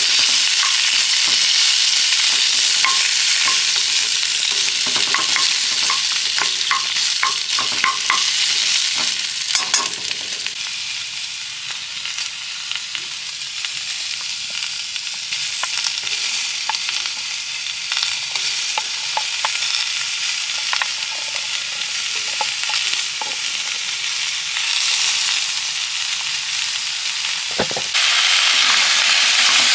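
Food sizzling as it fries in a hot pan, with light taps and clicks of a utensil stirring it for about the first ten seconds. The sizzle jumps louder near the end.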